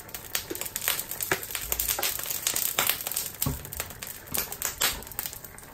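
Thickened mushroom sauce bubbling in a saucepan: a steady run of small, irregular pops and crackles. There are a few louder knocks, and a low bump about two seconds in.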